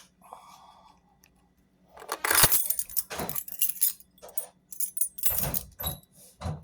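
Metal lock pick rake scraping and clicking in the keyway of a weathered Travco 720 padlock, with metallic jingling, in uneven bursts starting about two seconds in.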